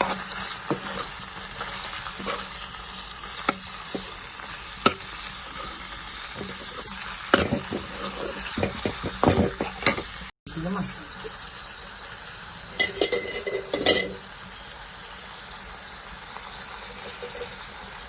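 Oil sizzling in a pan with spices frying, while a spoon stirs the mix, scraping and knocking against the pan. The knocks come in clusters about halfway through and again a few seconds later. The sound cuts out for an instant about ten seconds in.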